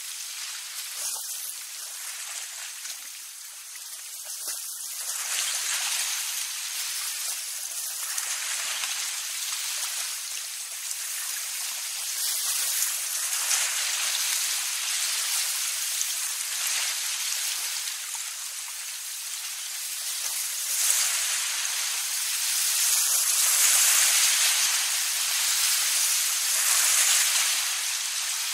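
Water sprinkler spraying: a steady hiss of water spray that slowly swells and fades, growing loudest a little past the middle.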